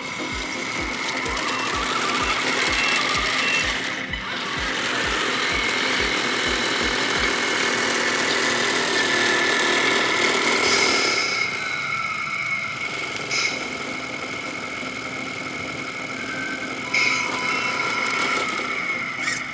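A Tamiya Grand Hauler 1/14-scale R/C semi truck running on gravel: its small electric drive motor and gearbox whine, with a few held pitches. The sound changes about eleven seconds in, and there is a short sharp sound near the end.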